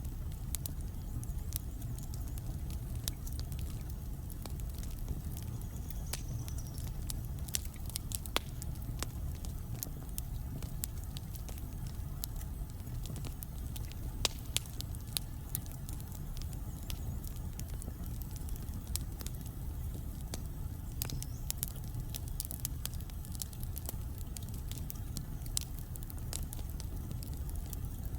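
Wood logs burning in a fireplace: a steady low rumble of the flames with frequent, irregular sharp crackles and pops.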